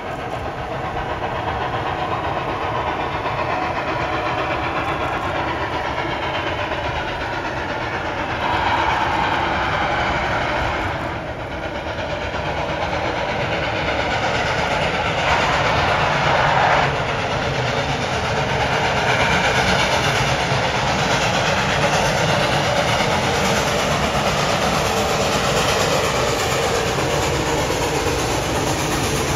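Denver and Rio Grande Western narrow-gauge K-28 steam locomotives 473 and mid-train helper 476 working a train, their exhaust and running noise steady and loud over the rush of river rapids.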